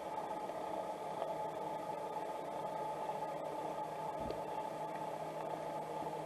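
Steady hiss with a faint low hum, picked up by an underwater camera sitting on the seabed, with one soft knock about four seconds in.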